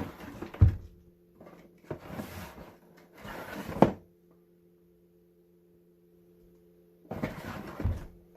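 Packaging and parts being handled during an unboxing: several bouts of rustling and scraping with sharp knocks as things are moved and set down. There is a pause of about three seconds in the middle.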